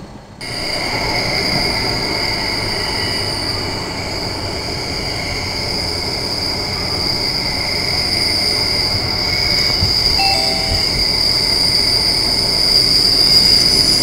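Train wheels squealing on the rails: a loud, steady, high-pitched screech with two piercing tones, starting about half a second in and growing a little louder toward the end. This is rail squeal from the wheels sticking and slipping across the railheads, which the uploader takes as a sign that something is wrong with the train's wheels.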